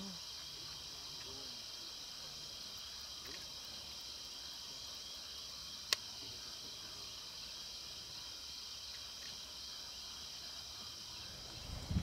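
Steady, high-pitched chorus of insects, with a single sharp click about halfway through.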